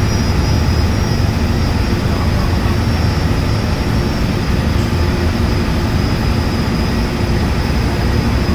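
Steady vehicle running noise: a constant low rumble with a faint high whine held throughout.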